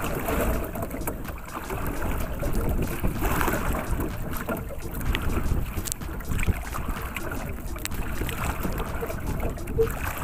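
Wind gusting on the microphone, over sea water lapping and splashing against the hull of a small outrigger canoe.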